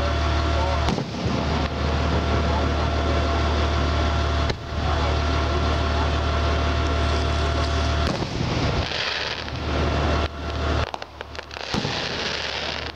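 Steady low hum of an idling engine, joined by a few sharp cracks of fireworks. In the last few seconds the hum drops away and a hissing crackle comes in.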